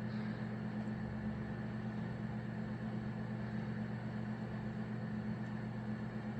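Steady low hum with a faint even hiss: shop room tone, with no distinct mechanical events.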